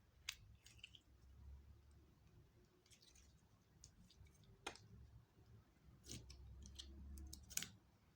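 Slime being mixed and stretched by hand, giving faint, scattered sticky clicks and small pops, with a quick cluster of them near the end.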